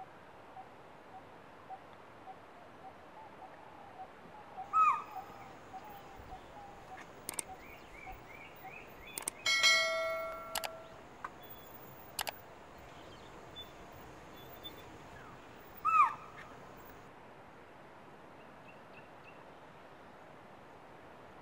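Birds calling in the scrub. A short note repeats about twice a second through the first half, two loud falling calls come about 5 and 16 seconds in, and a loud harsh call sounds around 10 seconds, with a few sharp clicks.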